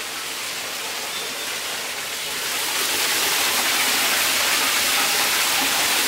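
Rushing water: a stream from a pipe splashing onto the paddles of a water wheel that turns a prayer wheel. A steady splashing rush that grows louder about halfway through and then holds.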